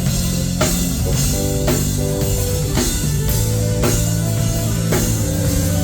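Live band playing with a full drum kit, electric bass and guitar: steady drum beat with cymbal hits over held bass and guitar notes.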